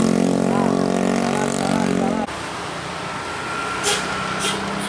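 A heavy bus passing close with a loud, steady, pitched drone that cuts off suddenly about two seconds in. A few short hisses of air follow, typical of a bus's air brakes.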